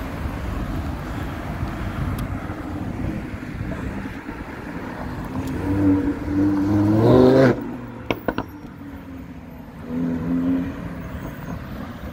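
Lamborghini Huracán V10 revving hard under acceleration: its note climbs steeply in pitch for about two seconds, starting some five seconds in, and then cuts off abruptly. Before it there is steady street-traffic noise, and a shorter engine note comes later.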